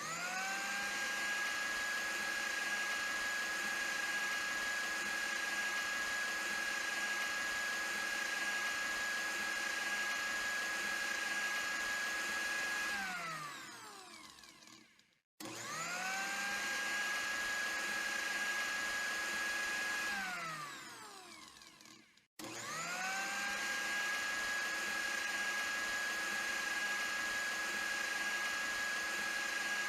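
Electric blender motor switched on, spinning up to a steady high whine, running for about 13 seconds and then winding down as it is switched off. It is started again and runs a few seconds before winding down, then starts a third time about two-thirds of the way through and keeps running.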